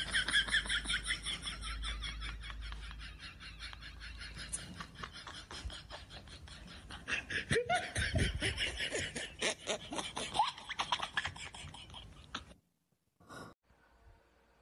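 A long run of laughter in quick, rhythmic pulses, cutting off suddenly near the end.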